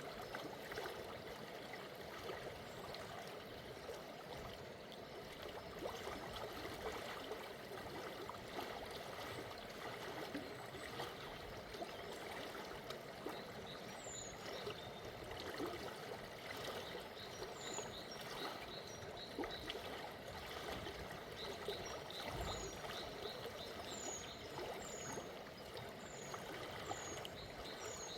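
River water flowing steadily over a gentle current, a continuous babbling rush. From about halfway in, small birds call over it with short, high, falling chirps repeated every second or so.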